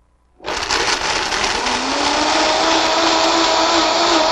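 Countertop blender switched on about half a second in and running steadily at high speed, its pitch rising a little as the motor comes up to speed and then holding. It is grinding cashew nuts with vegetable stock into a smooth liquid.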